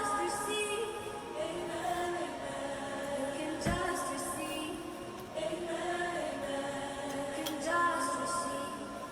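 Music with voices singing long held notes that shift in pitch every second or so, with a low thump about three and a half seconds in.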